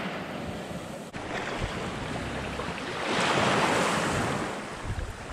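Calm shallow sea water lapping, with wind on the microphone. The sound swells louder for a second or so about three seconds in.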